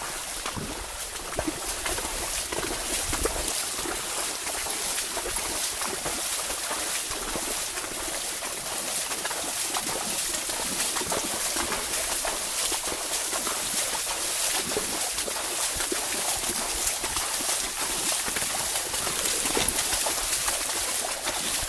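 Steady sloshing and splashing of water with many small crackles, as of a horse wading through a wet paddy field.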